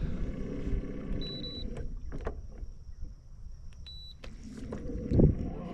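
Small boat sounds: a steady low rumble with scattered knocks, two short high beeps about two and a half seconds apart, and a louder thump near the end.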